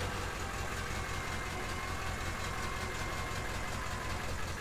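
A truck engine idling steadily, with a low, even rumble.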